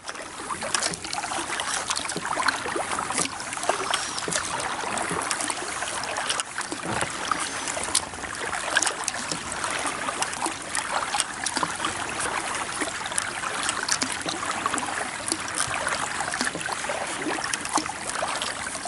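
Kayak paddle with plastic blades working the water: splashing and trickling from the blades, with scattered light clicks. The paddle's plastic material is what gives it its clean sound.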